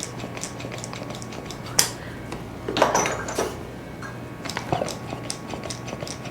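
Cupping cups clicking and clinking as they are handled and set on the skin, a string of small sharp clicks with a couple of louder clacks about two and three seconds in.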